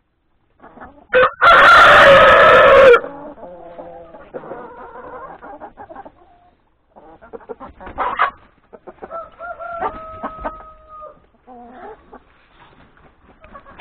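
A rooster crows loudly and close, starting a little over a second in, followed by hens clucking and calling, with a fainter drawn-out call around ten seconds in.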